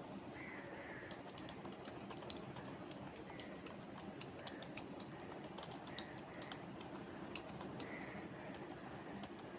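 Typing on a computer keyboard: irregular key clicks, several a second, starting about a second in, over a steady background hum.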